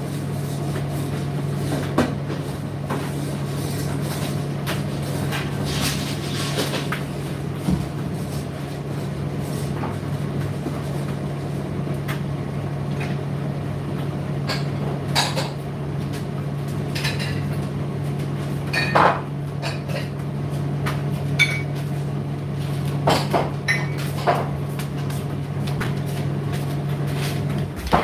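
Indesit IDC8T3 condenser tumble dryer running with a steady low motor hum, and irregular knocks and clinks from the load tumbling in the drum. The hum cuts off suddenly near the end as the drum stops.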